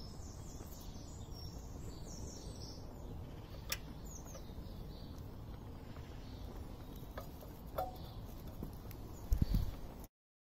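Quiet ambience: faint bird chirps over a low, steady rumble of background noise, with no engine running. There are a couple of light clicks, then a short thump just before the sound cuts off abruptly near the end.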